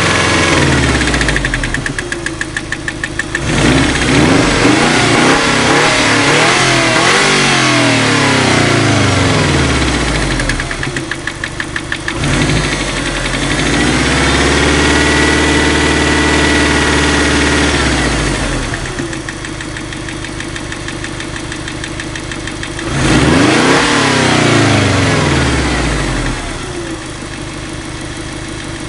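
Ford 2.0 turbo engine revved several times from idle, held at high revs for a few seconds in the middle and dropping back to idle between blips. At idle there is a rapid rhythmic knock, the knock the owner is complaining about.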